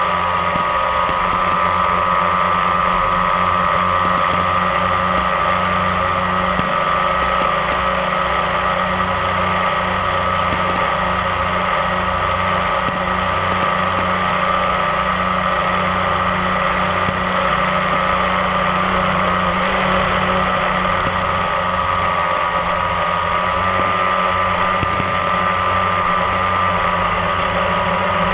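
Multirotor drone's motors and propellers running steadily while it hovers, a loud high-pitched whine with a low hum beneath, its pitch wavering slightly as the motors adjust.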